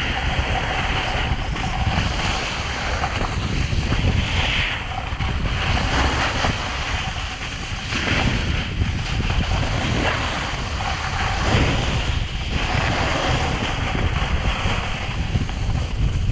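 Wind buffeting a GoPro's microphone during a snowboard descent, with the board's edges scraping across the snow. The scraping comes in surges of hiss every couple of seconds as the board turns.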